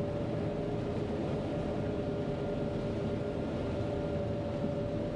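John Deere 9500 combine running steadily while harvesting corn, heard from inside the cab: an even drone of engine and threshing machinery with a steady hum in it.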